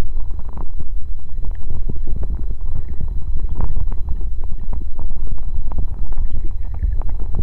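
Muffled underwater noise picked up by a submerged phone's microphone: a heavy, steady low rumble of moving water, with many irregular soft clicks and pops.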